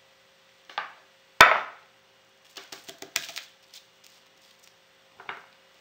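A spoon knocking and clicking as sushi rice is scooped and spread onto a nori sheet on a bamboo rolling mat. One sharp knock about a second and a half in is the loudest, followed by a quick run of small clicks about a second later.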